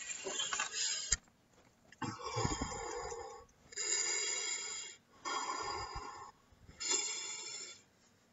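A man's heavy, labored breathing: about five long breaths, each roughly a second, with short pauses between them, from the burn of extreme chili sauces.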